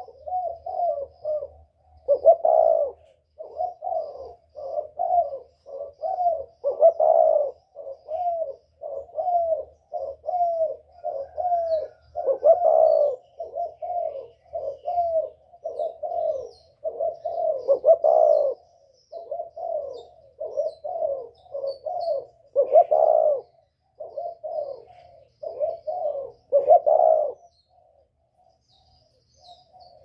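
Spotted dove cooing over and over: a run of short low coos, with a louder, longer coo about every five seconds, stopping briefly near the end.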